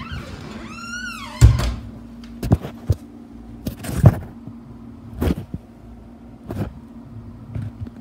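Handling and movement noise from a tablet camera being carried through a house: a squeak that rises then falls, a heavy thump about a second and a half in, then scattered irregular knocks and thuds over a steady low hum.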